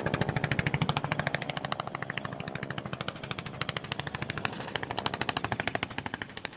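Aircraft running nearby with a fast, even chopping beat of about ten to twelve pulses a second, steady throughout.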